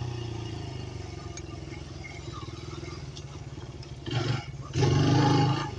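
Dirt bike engine running at a steady low throttle while riding, then getting louder twice near the end as the throttle opens.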